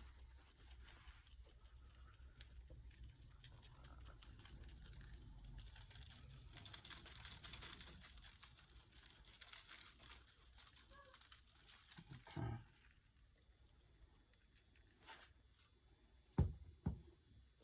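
Lemon pepper seasoning shaken from a shaker onto pieces of raw salmon: a faint, steady pattering hiss of falling granules. Two brief soft thumps near the end.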